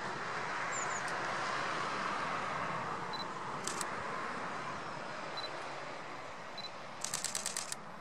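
Canon EOS M5 camera shutter firing: a quick double click about three and a half seconds in, then a rapid burst of about eight shots near the end, over a steady background hiss.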